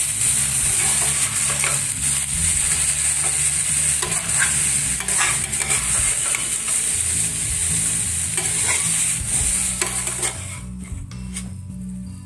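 Cauliflower florets and spice masala sizzling in a stainless steel frying pan while a metal spatula stirs and scrapes through them. The sizzle grows much quieter about ten and a half seconds in.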